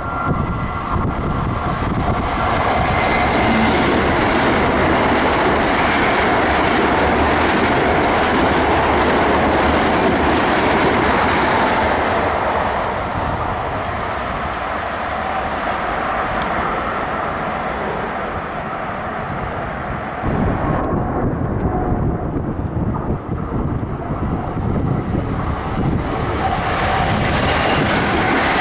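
Long Island Rail Road passenger train running past on the tracks: a steady loud rumble of wheels on rail that eases for several seconds midway, then picks up again.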